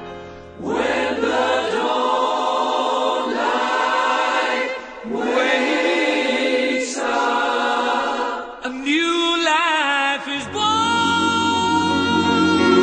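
Choral music: voices singing long held chords in phrases a couple of seconds long, with a brief wavering vibrato line about nine seconds in.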